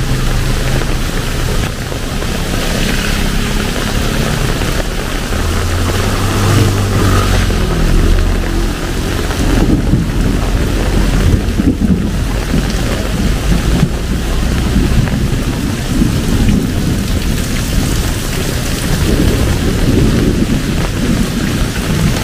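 Heavy rain pouring steadily, with a low rumble for a few seconds about a third of the way in.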